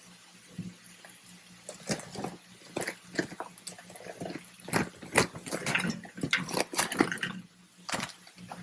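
Sliced bell peppers being dumped into a hot skillet with a little water in it and moved around: an irregular run of crackles, clatters and scrapes starting about two seconds in.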